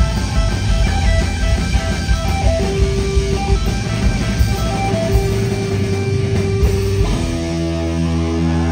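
Live punk rock band playing loud, with distorted electric guitar and drums. About seven seconds in the drumming stops and a held chord rings on.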